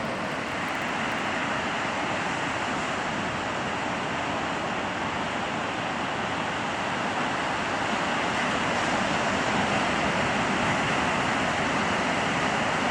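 Ocean surf breaking and washing onto a beach: a steady rush of noise with no distinct events, growing slightly louder in the second half.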